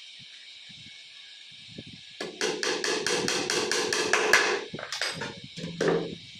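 Hammer driving nails into a melamine particleboard tabletop: a fast run of light taps, about five a second, lasting some two and a half seconds, followed by two single louder knocks near the end.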